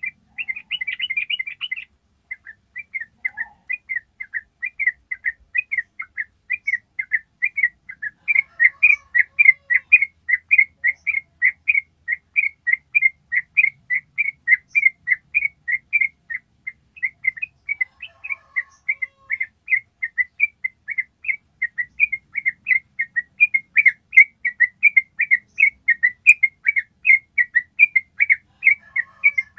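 Yellow-vented bulbul (trucuk) singing a long 'ropel': an unbroken run of short repeated notes, about four a second, that grows louder about eight seconds in. It opens with a brief, denser chatter in the first two seconds.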